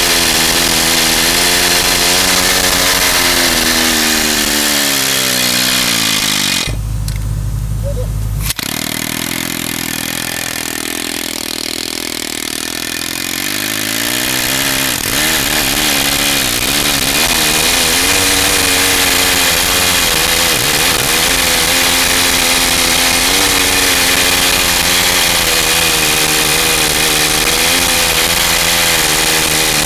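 Quasiturbine QT.6LSC compressed-air motor running a chainsaw through logs, its pitch sagging and rising as the chain bites into the wood. There is a short break about seven seconds in, then it runs quieter and lower for several seconds before cutting hard again.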